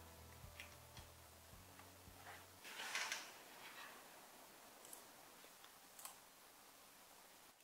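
Near silence: a faint ticking beat fades out in the first few seconds, then a brief soft rustle and a few light clicks.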